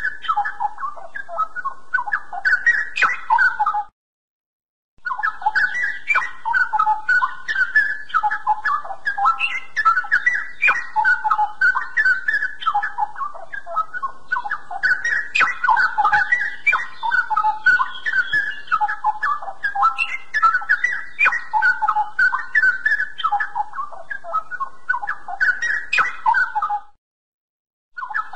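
Straw-headed bulbul (cucak rowo) singing a continuous, rich warbling song of quick varied phrases. The song breaks off into silence twice, for about a second around four seconds in and again near the end.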